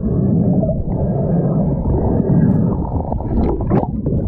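Muffled underwater rushing and bubbling with a low rumble, heard by a camera below the surface as a freediver swims with fins. It starts suddenly as the camera goes under, and there are a couple of short clicks near the end.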